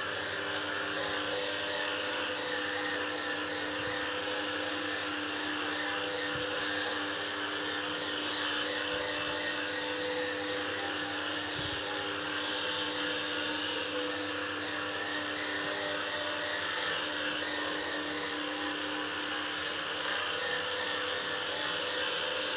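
BISSELL SpinWave spin mop running, its motor humming steadily as its two spinning pads scrub a hard floor.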